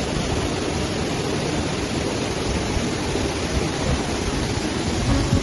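Waterfall rushing steadily: a dense, even noise of falling water with no rises or breaks.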